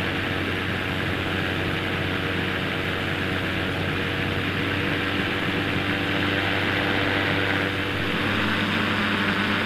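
Quicksilver ultralight airplane's engine running steadily in flight, with a rush of wind noise; the engine note changes slightly about eight seconds in.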